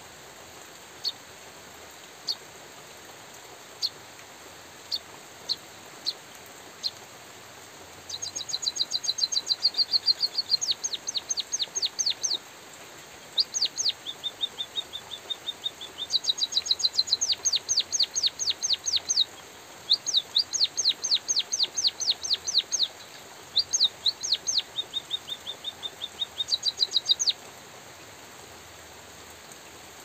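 White-headed munia (emprit kaji) singing. It gives a few single high chirps a second or so apart, then from about 8 seconds in long runs of quick, thin, high notes and short trills with brief pauses, stopping shortly before the end. A steady hiss of light drizzle lies beneath.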